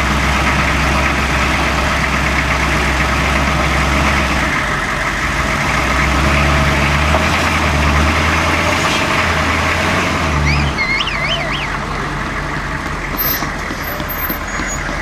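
Hummer H1 engine running at low revs as the truck crawls over rock, a steady low drone that fades out about eleven seconds in. A brief high warbling chirp sounds just after the drone drops.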